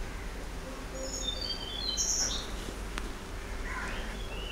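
A bird calling in the background: a quick run of short, high chirps stepping down in pitch about a second in, and softer calls near the end, over a low steady hum.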